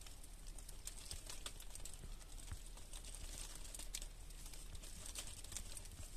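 Faint, irregular crinkling and crackling of dry fallen leaves as someone shifts in a leaf-littered rock shelter: many small scattered clicks.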